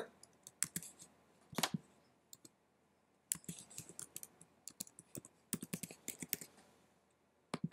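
Computer keyboard being typed on: faint, irregular key clicks, a few scattered ones at first, then a quick run of keystrokes in the second half as a password is entered.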